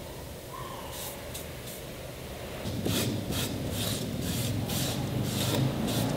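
A cotton rag rubbed back and forth along the edge of an MDF board, about two to three strokes a second, dampening the edge before instant glue goes on. A steady low hum comes in underneath about three seconds in.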